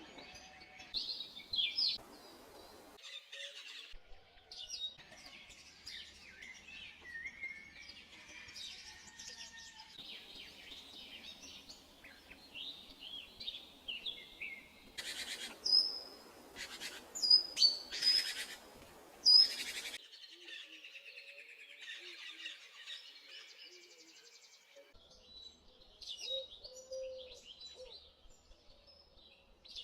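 Songbirds chirping and singing in short whistled phrases, across several spliced-together recordings whose background changes abruptly a few times. The loudest moments are a run of sharp, piercing calls about halfway through.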